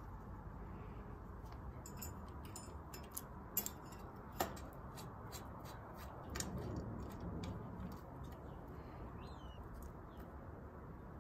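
Light metallic clicks and ticks of a mechanical disc brake caliper and hex key being handled while the caliper is fitted and bolted to a bicycle frame, with two sharper clicks about four seconds in.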